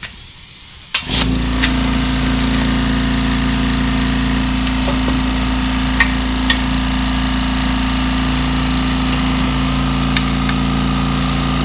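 Small portable air compressor switching on about a second in and then running steadily, pumping air into new copper water supply lines for a pressure test.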